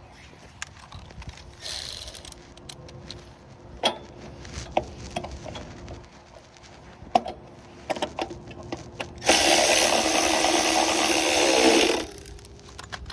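Light clicks and knocks of tools being handled, then a handheld power tool runs for about three seconds near the end, the loudest sound.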